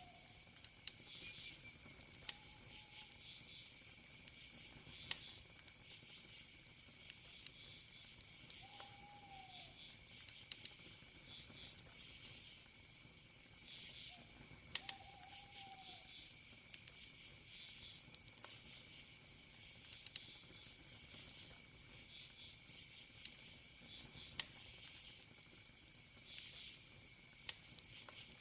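Faint wood campfire crackling with scattered sharp pops, over a steady high cricket trill and pulsing insect chirps. Three short, arching low calls from another creature come about two, nine and fifteen seconds in.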